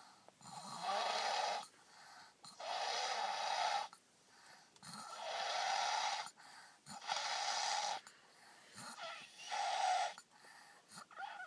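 Loud snoring: about six long, rasping snores, one every two seconds or so, with quieter breaths between them.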